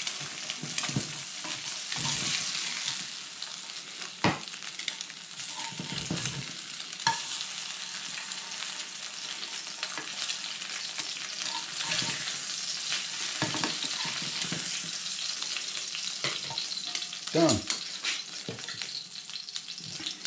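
Eggs sizzling as they fry in a non-stick pan on a small portable gas stove. A slotted metal spatula scrapes and knocks against the pan now and then.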